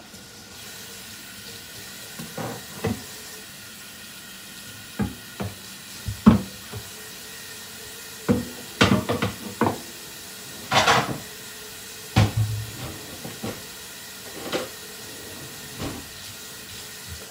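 Kitchen sink tap running as a wooden cutting board is rinsed under it, with a dozen or so short knocks and clatters as it is handled in the sink.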